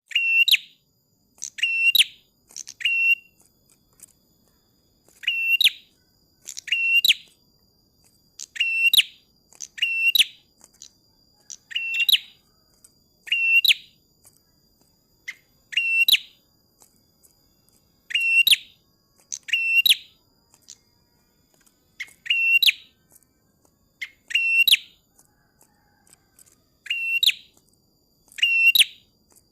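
A prinia (prenjak klawu) calling repeatedly: short, sharp chirps, singly or in quick pairs, every second or two.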